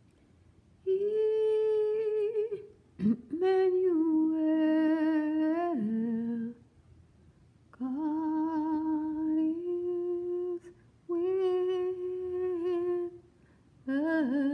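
A woman humming a slow tune in long held notes with a slight vibrato, in five phrases separated by short pauses.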